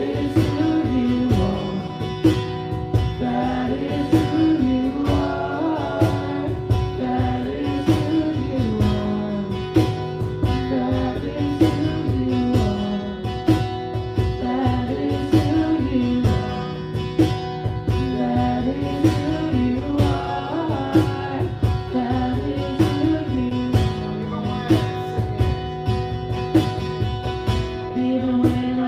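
Live acoustic song: a woman singing a melody into a microphone over a strummed acoustic guitar, with steady cajón beats keeping time.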